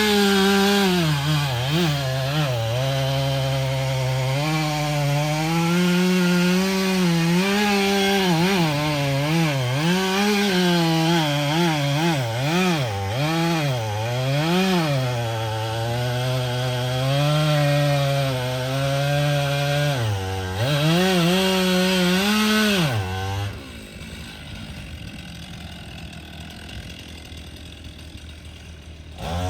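Chainsaw cutting through oak wood, its engine pitch repeatedly dipping under load in the cut and rising again as it frees up. It stops about 23 seconds in, leaving a quieter, steady background noise.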